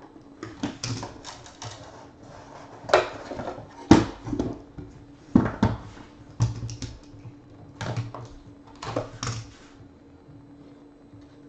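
A box cutter slitting the seal of a sealed trading-card hobby box, then the lid coming off and the inner case being pulled out and handled: an irregular run of sharp clicks, scrapes and knocks.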